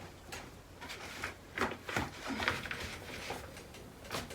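A new, stiff, paper-like tablecloth crinkling and rustling in irregular short bursts as it is handled and smoothed on a table, with a few light knocks.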